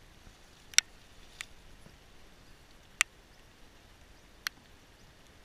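A few short, sharp clicks, four in all, the loudest about a second in and about three seconds in, over a low steady background.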